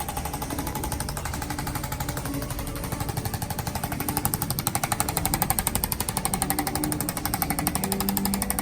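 Handheld percussion massager running with a rapid, even hammering pulse, getting louder about four seconds in.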